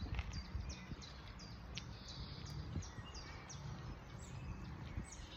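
Birds chirping, a quick run of short high notes that each fall in pitch, over a low steady outdoor rumble.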